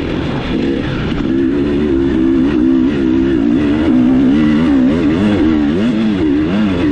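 Dirt bike engine revving up and down under the rider's throttle, its pitch rising and falling repeatedly, with the swings growing wider near the end.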